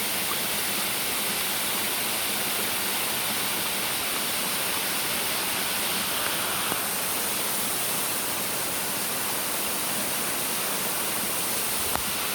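Waterfall pouring and splashing: a steady, unbroken rush of water, with a brief click near the end.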